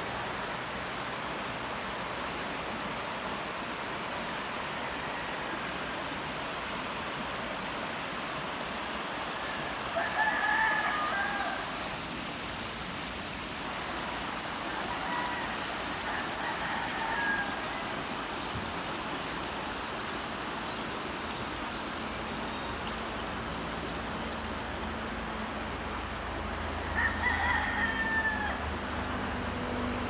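Steady rushing of a shallow, rocky river over rapids. A rooster crows twice over it, about ten seconds in and again near the end, with fainter crows in between.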